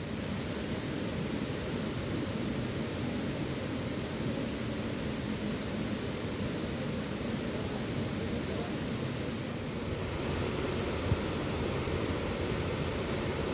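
Steady rushing roar of a large waterfall, Fukuroda Falls, even and unbroken, with a couple of faint clicks near the end.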